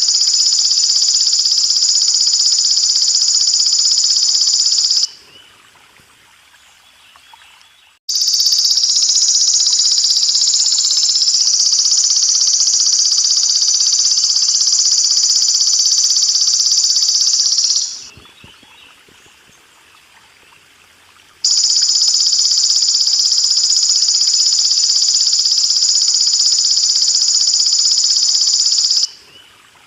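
Belalang emas ('golden grasshopper') singing insect giving a loud, continuous high-pitched buzzing trill in three long bouts of several seconds each, each cutting off abruptly. Water trickles softly underneath.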